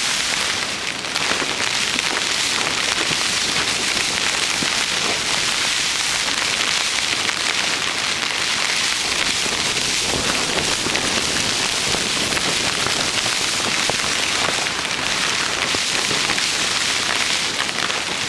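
Heavy rain falling on a tent's fabric, heard from inside the tent: a loud, steady hiss of countless small drop impacts, keeping up without a break.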